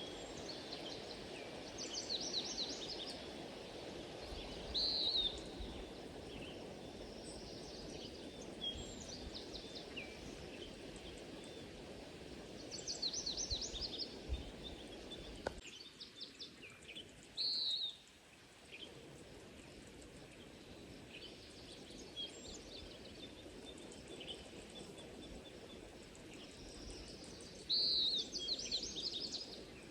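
A songbird singing short phrases every few seconds, each a high slurred note followed by a quick run of notes. Under it runs a steady low background rumble that briefly dies away about halfway through.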